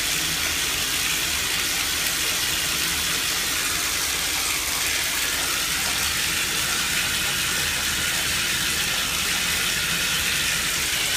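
Water running steadily from a bathtub tap, an even rushing hiss that does not change.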